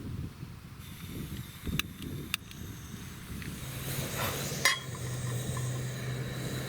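Cooking gear being handled and set out: a few sharp clicks and clinks of cookware, with a steady low hum starting about halfway through.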